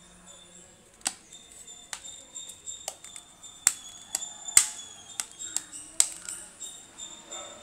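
Plastic back cover of a Kechaoda K4500 rugged feature phone being pressed and snapped into place over the battery: a dozen or so sharp clicks at irregular intervals, the loudest around the middle.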